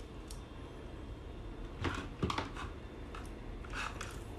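Light handling noises of wiring work: a few soft clicks and rustles of small parts and wire being handled on the workbench, a couple about two seconds in and more near the end, over a steady low room hiss.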